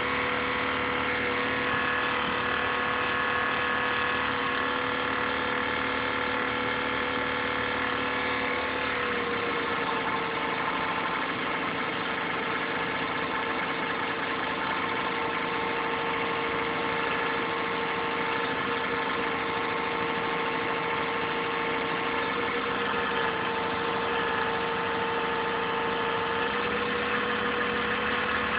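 INSYS GameForce laptop's cooling fan running with a steady whine made of several pitched tones, a strange noise in its owner's view. The pitch steps down slightly about nine seconds in. Recorded through a phone microphone, so somewhat distorted.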